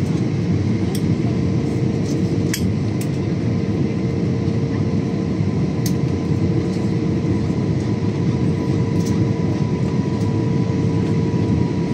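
Airliner cabin noise during the descent to land: a steady drone of engines and airflow with a constant hum, and a few light clicks.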